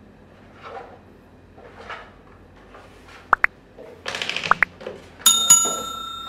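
Subscribe-button animation sound effect: two quick clicks, then a bright bell ding struck twice that rings on and slowly fades. Soft plastic handling noises from the trike being put together come before it.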